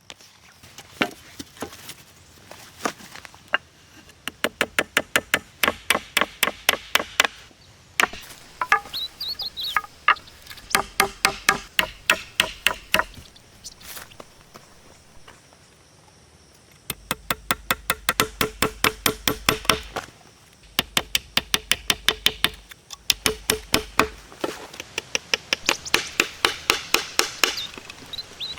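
Rapid hand-tool strikes, about five a second, in runs of a few seconds with short pauses between; each strike rings briefly.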